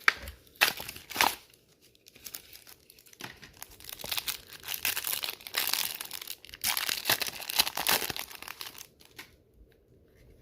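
Foil trading-card booster pack being torn open and crinkled: a few sharp rips in the first second or so, then bursts of crinkling from the wrapper through the middle.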